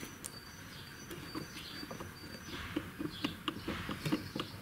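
Faint, scattered light clicks and taps of the old, worn ignition distributor being handled, with brief high-pitched chirps coming and going behind them.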